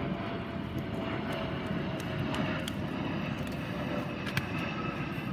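Aircraft engine droning steadily overhead, with a single sharp tap a little past four seconds in.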